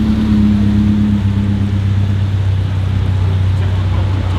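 Exhaust of a modified BMW E30 3 Series coupe running at low revs as it pulls slowly away, a steady deep drone.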